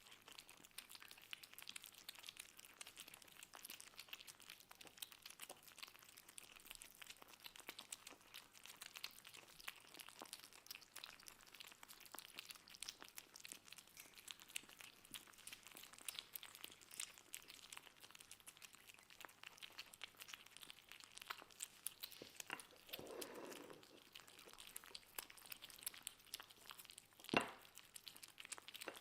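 Kittens eating: a faint, continuous patter of small crunching and smacking clicks from their mouths on the food. A muffled sound lasting about a second comes late on, and a single sharp knock near the end is the loudest event.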